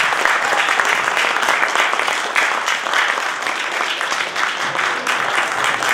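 Audience applauding: many hands clapping in a dense, steady clatter.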